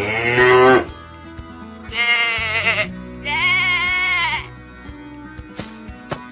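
Animated sheep bleating, three calls over background music: the first rises in pitch and is the loudest, the next two quaver. A few short taps follow near the end.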